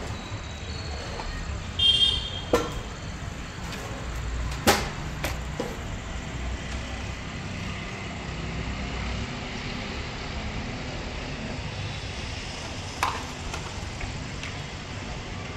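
Hands fitting an IP camera and its plastic mounting box: a few sharp clicks and knocks, the loudest about five seconds in, and a brief squeak about two seconds in, over a steady background hum.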